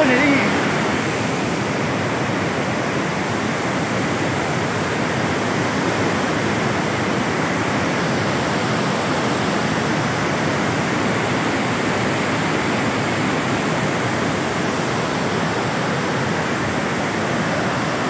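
Fast, foaming white water of a waterfall and its channel rushing, a steady, unbroken noise.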